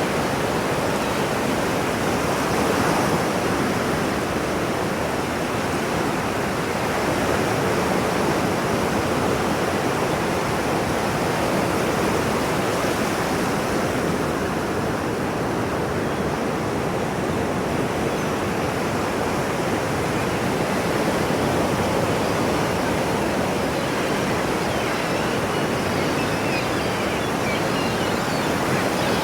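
Ocean surf washing in a steady, continuous rush, swelling slightly every few seconds.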